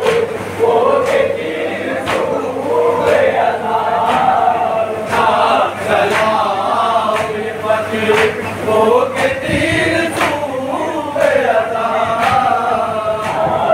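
A group of men chanting a noha (Shia lament) together, the melody bending and held in long phrases, with sharp slaps of matam (chest-beating) landing roughly once a second.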